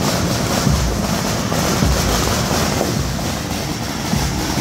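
Steady, loud hubbub of a large street crowd, with low rumbling from wind on the microphone.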